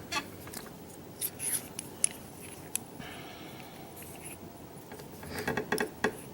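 Small metal parts of a gutted Schlage lock, its pin-tumbler pins and springs, being handled: scattered light clicks and short scrapes, with a quick run of clicks near the end.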